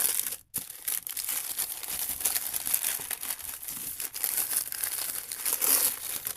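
Wrapping paper crinkling and tearing as a gift is unwrapped by hand, a dense run of rustles and rips with a brief break about half a second in.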